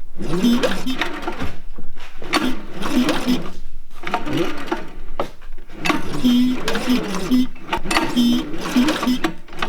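Recoil pull-starter on a ZR120 kids' snowmobile pulled about five times, each pull briefly cranking the small four-stroke engine over with a fast mechanical whirr. The engine is being spun with its spark plug out to check for ignition spark.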